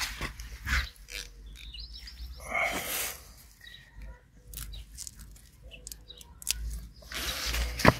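Carrot foliage rustling and soil and wood-chip mulch crackling as a hand grips and pulls a carrot from the bed: scattered short rustles and clicks, the loudest burst near the end.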